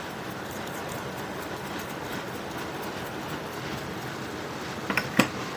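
Pork sizzling as it fries in a pan, a steady crackling hiss, with two sharp taps about five seconds in.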